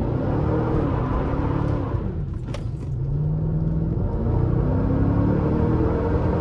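Chevrolet Camaro SS's 6.2-litre V8 accelerating hard, its pitch climbing and dropping back several times as it pulls through the gears, with a sharp click about two and a half seconds in.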